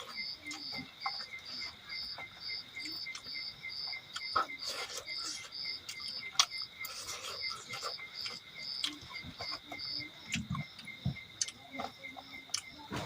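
Insect chirping steadily in a regular rhythm, about two pulses a second, with scattered soft clicks and smacks of eating between them.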